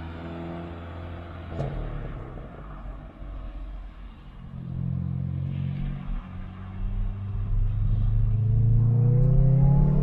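Hyundai i20 N's turbocharged four-cylinder engine and exhaust running. The note holds steady at first, changes after a click about one and a half seconds in, and over the last few seconds climbs steadily as the car accelerates.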